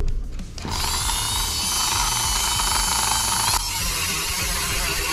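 Small handheld rotary tool running at high speed with a steady high-pitched whine, starting a moment in; about three and a half seconds in its sound turns rougher and a little quieter and keeps going.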